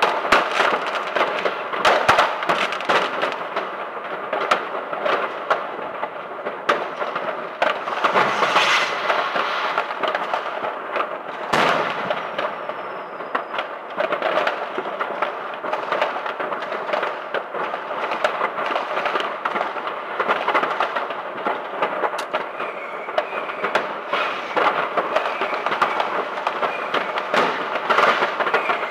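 Many fireworks going off at once: a dense, continuous crackling and popping with frequent sharper bangs, the loudest about 11 seconds in.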